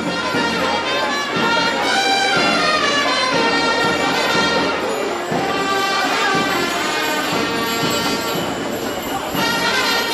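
Loud music of wind instruments, horn-like, playing a melody with held and sliding notes over percussion.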